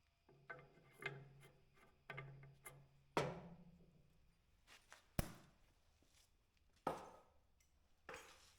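Faint scattered knocks and clinks of tools and metal parts being handled, with a sharper knock about three, five and seven seconds in. A low hum stops about three seconds in.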